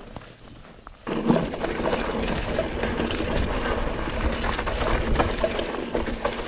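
Mountain bike rolling down a rough, rocky trail: steady tyre and trail noise with many small clatters and knocks from the bike. It starts suddenly about a second in, after a quiet moment.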